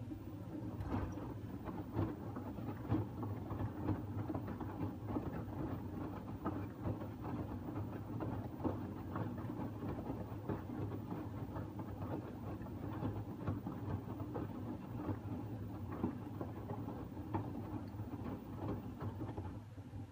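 LG TurboWash front-loading washing machine's drum tumbling a wet cotton load in sudsy water during the steam main wash: a steady motor hum with irregular splashes and soft thuds as the laundry drops in the drum.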